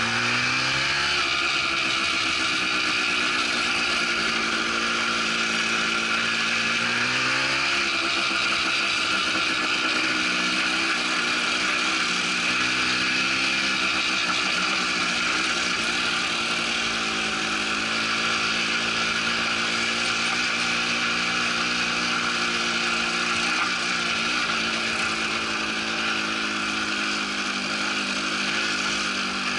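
Small off-road vehicle engine running under load along a rough track, its pitch rising as the throttle opens about a second in and again around seven seconds in, then holding fairly steady.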